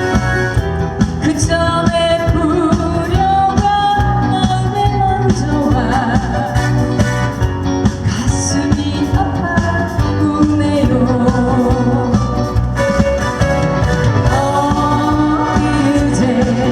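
A trot song performed live: a singer's voice over a backing track with a steady beat.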